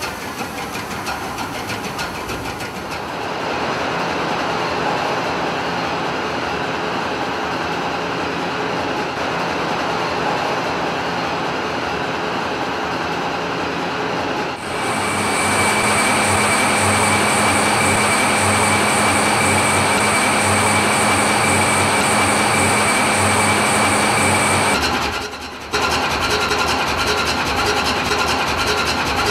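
Large MAN Diesel engines running: a steady loud mechanical drone that changes abruptly about 3, 15 and 25 seconds in. Between 15 and 25 seconds there is a steady high whine over a low pulsing beat.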